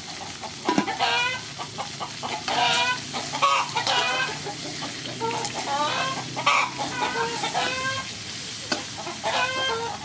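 Chickens clucking in repeated runs of short calls, over the sizzle of gizzards stir-frying in a wok and a spatula stirring them.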